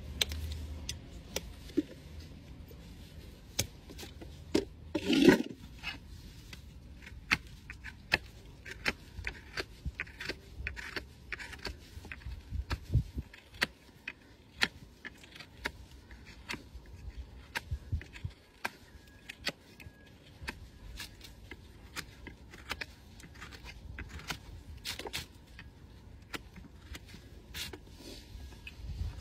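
Hoof knife paring the sole and frog of a Shire horse's shod hind hoof: a run of short, sharp scraping cuts, with one louder stroke about five seconds in.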